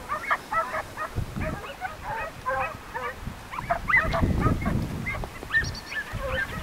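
A pack of hunting hounds baying and yelping in chorus, many short overlapping cries, in full cry on the scent as they drive wild boar toward the hunters' posts.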